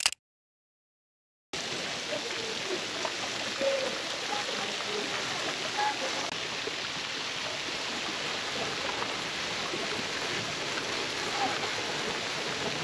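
Silence, then about a second and a half in a steady rushing sound of water starts and runs on evenly.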